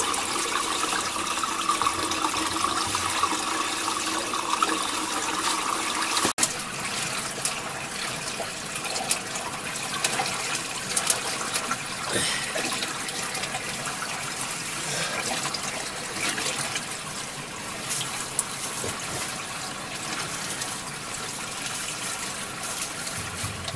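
Flowing river water: a steady rushing wash that breaks off for a moment about six seconds in.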